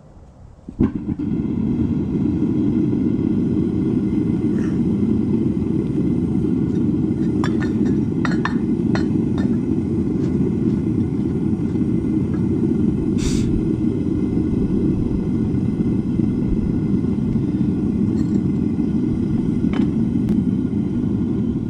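Propane burner of a small metal-melting furnace lighting about a second in and then running with a steady low roar. A few short metallic clinks sound over it, a cluster around eight to ten seconds in and one near thirteen seconds.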